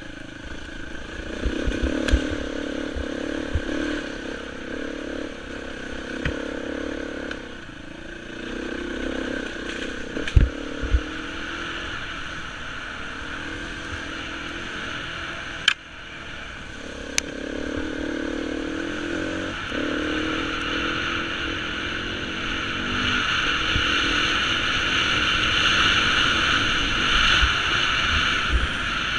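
Beta 350 enduro motorcycle engine revving up and down as the bike is ridden over a rough dirt trail, with a few sharp knocks and clatter from the bike over bumps. In the last third, a rushing wind noise on the microphone grows louder as the speed picks up.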